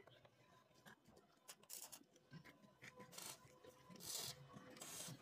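Near silence with faint scraping or rubbing sounds and a few light clicks, the clearest scrapes about three and four seconds in.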